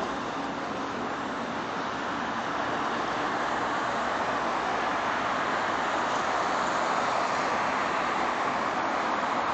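Steady city street traffic noise, a continuous wash of passing vehicles, growing a little louder a few seconds in.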